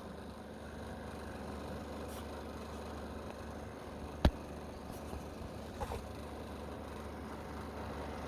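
A low steady hum with one sharp click about four seconds in, and a couple of faint knocks about a second or two later.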